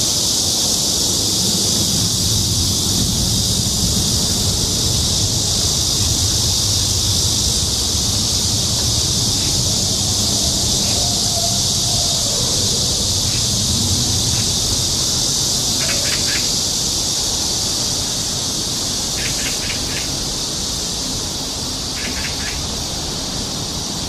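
A dense, steady chorus of cicadas buzzing high and shrill, with a bird's short chirps in little clusters now and then. Wind rumbles on the microphone underneath.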